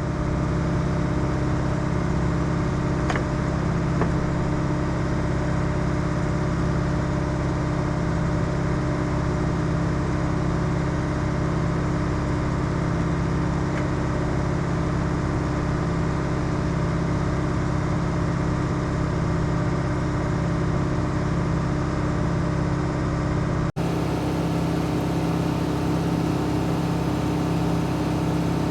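Excavator's diesel engine running steadily at an even speed.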